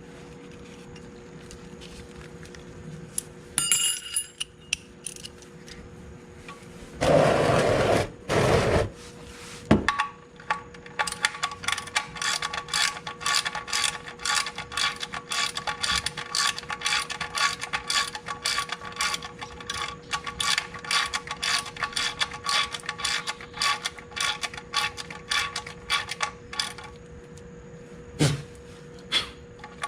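Ratchet wrench clicking in an even run of about three clicks a second for some fifteen seconds while the oil drain plug is tightened. Two short loud noisy bursts come a few seconds before the clicking starts.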